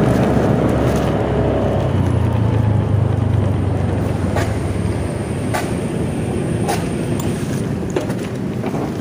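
Motorcycle riding with engine and road noise, slowing down. The low engine rumble fades after the first two or three seconds, and a few light clicks follow.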